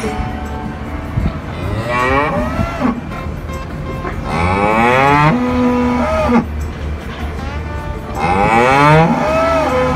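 A cow mooing three times, each moo a long call that rises and then falls in pitch; the last comes near the end.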